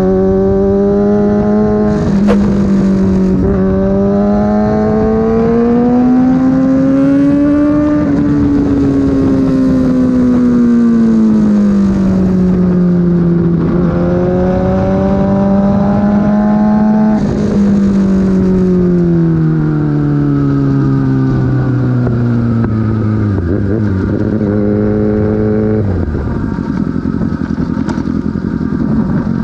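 Sport motorcycle engine under way, its note rising and falling in pitch as the throttle is opened and rolled off. In the second half the revs sink in a long, steady fall, and they drop once more near the end.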